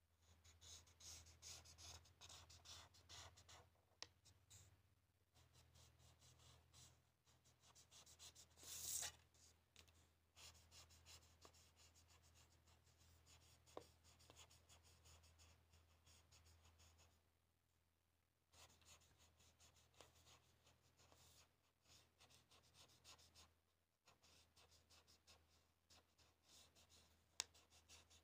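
Marker pen scratching back and forth on paper in quick, dense colouring strokes, broken by a few short pauses, with one louder scrape about nine seconds in and a sharp click near the end. A faint steady low hum runs beneath.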